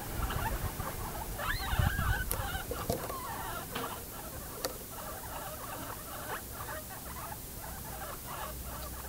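Guinea pigs munching pieces of vegetable, a continuous fine crunching and nibbling, with a few short squeaky sounds between about one and a half and two and a half seconds in.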